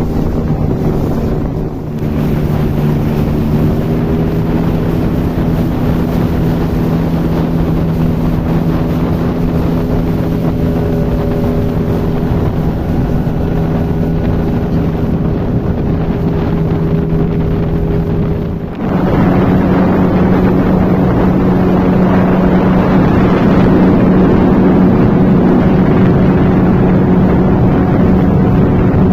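Motorboat engine running steadily under way, with wind buffeting the microphone. About two-thirds of the way through, the engine note dips for a moment, then comes back higher and louder as the throttle is opened.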